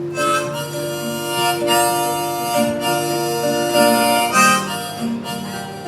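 Harmonica playing a slow melody in long held notes over a strummed acoustic guitar, the instrumental introduction to a folk ballad.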